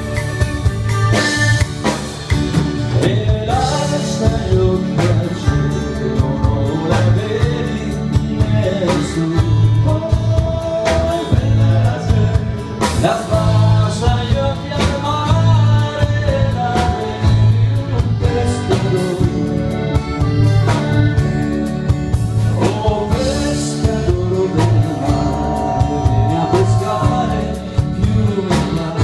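Live band playing a song, with a man singing over accordion, acoustic and bass guitars and a drum kit keeping a steady beat.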